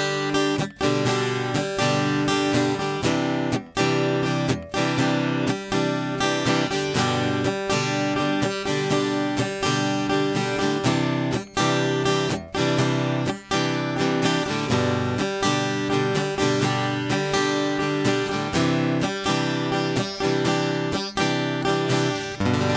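Ovation Celebrity Elite CE44 steel-string acoustic guitar strummed in chords in a steady rhythm, each strum ringing into the next.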